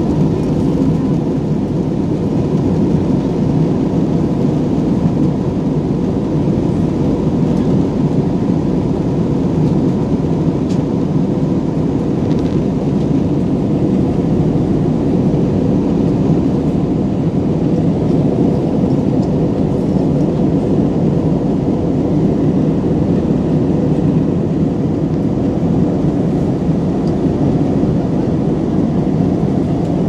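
Steady jet airliner cabin noise in cruise flight: an even, unbroken rush of engines and airflow, with a faint steady hum above it.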